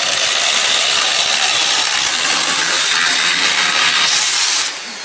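Interskol angle grinder with a metal-cutting disc cutting into iron bars, a loud steady grinding hiss. The cutting noise drops away near the end.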